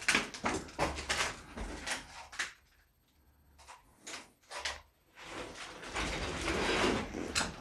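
Scattered knocks, scrapes and scuffing footsteps of someone moving through a cramped, debris-strewn locker room, with a nearly silent stretch of a couple of seconds in the middle and steadier rustling near the end.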